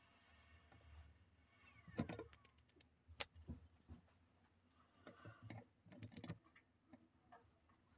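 Faint, irregular clicks and light taps of small parts being handled in hand work, with a soft steady hum behind them. The taps come singly at first, then in a quick cluster near the end.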